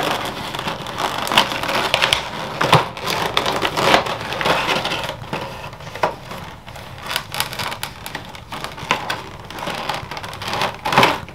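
Clear plastic blister packaging crackling and crinkling as it is pried open by hand, with many sharp snaps and clicks and a loud snap near the end.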